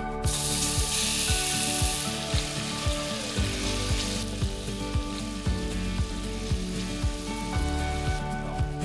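Diced chicken sizzling in hot oil in a pot as it is tipped in and stir-fried. The sizzle is loudest for the first couple of seconds and settles to a softer frying hiss after about four seconds, with background music with a steady beat underneath.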